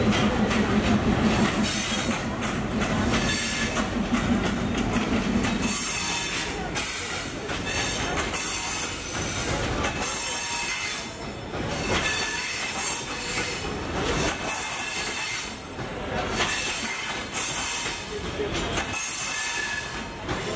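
Bangladesh Railway diesel locomotive passing slowly, its engine a low throbbing hum for about the first six seconds. Then the intercity passenger coaches roll by, with wheels squealing and clicking over rail joints.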